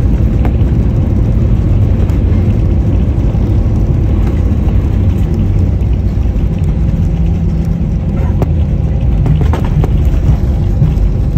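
Passenger jet's cabin during the takeoff roll: a loud, steady low rumble of the jet engines at takeoff thrust and the wheels running over the runway, with a few faint clicks and rattles.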